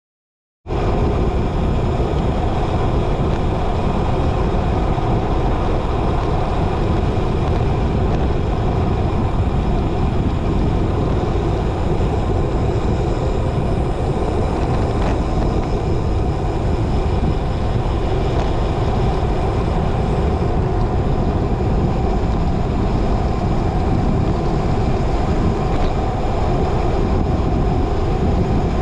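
Wind rushing over a camera microphone while cycling on the road: a steady, loud rush that starts abruptly just under a second in.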